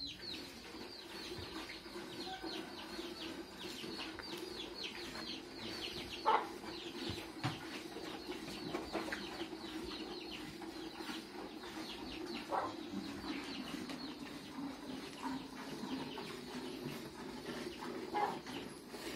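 Chickens in the yard: a rapid chorus of high, falling peeps with clucking, over a steady low hum, and a few louder short calls.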